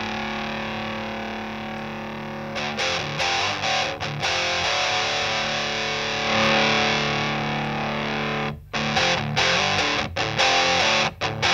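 Electric guitar played through a Rullywow Eaglet drive pedal, a DIY clone of the EarthQuaker Devices Talons, giving a distorted tone. A chord rings out at first, then choppy rhythm chords follow, with another held chord. About two-thirds of the way in there is a brief stop, and short, stabbed chords follow.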